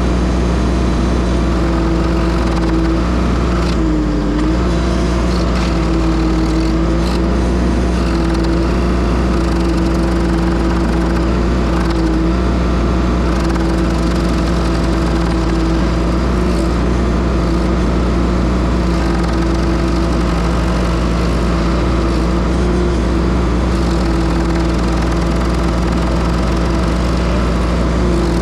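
Engine of a Case TL100 mini skid steer running steadily while it powers a Toro stump grinder attachment, its pitch holding level apart from a brief dip about four seconds in.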